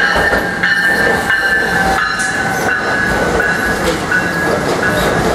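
NJ Transit Multilevel double-deck train passing close by at speed, a steady rolling rumble of the coaches' wheels on the rails with sharp knocks from the wheels over rail joints and a high whine running through it.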